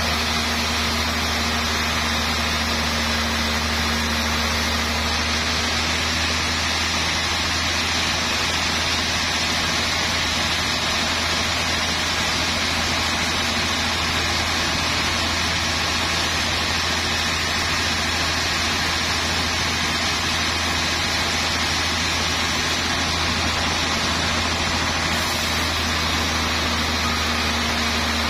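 Band sawmill running steadily, its blade cutting lengthwise through a trembesi (rain tree) log: a continuous loud machine noise over a low hum.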